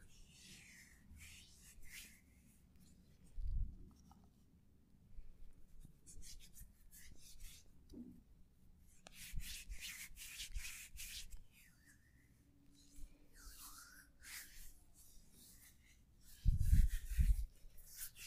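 Hands rubbing over skin and clothing in irregular strokes during a back massage. A dull low thump comes about three seconds in, and a few louder dull thumps come near the end.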